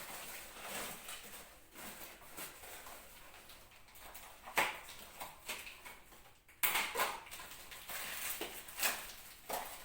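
Melamine plates and bowls being handled: a few sharp clacks of dish against dish, with rustling in between.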